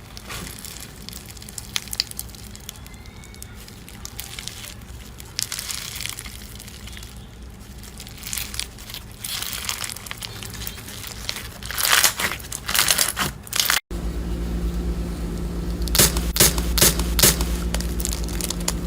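Slime being pressed and worked by hand, making crinkly crackling and popping clicks that grow denser and louder. About two-thirds of the way through it cuts to another clip, where a steady low hum runs under sharper crackles.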